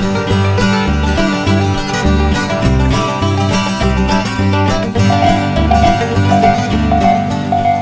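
Background music in a bluegrass style, with banjo-like plucked strings over a steady bass line. About five seconds in, a tone pulsing about twice a second joins it.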